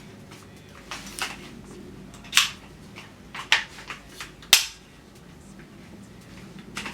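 Sharp metallic clicks and clacks of a firearm being handled, about five in all, the loudest three spaced about a second apart in the middle.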